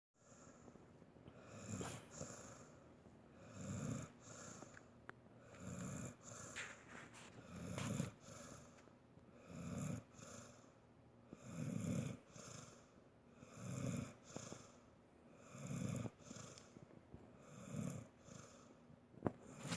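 Heavy snoring from an old sleeper, with one long snore about every two seconds and the same rhythm throughout. A sharp click sounds just before the end.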